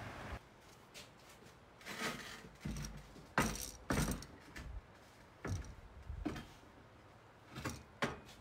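Steel anvil stand and anvil being handled and turned over on a steel workbench: irregular metal-on-metal clanks and knocks, a dozen or so, some with a short ring.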